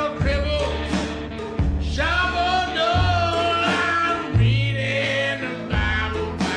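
Background music: a song with a singing voice over a bass line that changes note every second or so.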